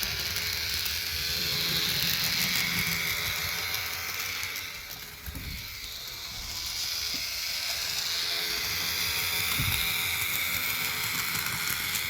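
Roco BR 290 (V90) model diesel locomotive running on the track with both bogies driven, its motor and drive giving off a loud, steady mechanical whirr. It fades for a moment about five seconds in, then comes back. This is the noise problem the owner is trying to cure; he guesses it is the motor itself rather than the gears, and wonders whether sewing-machine oil on the motor shaft would quiet it.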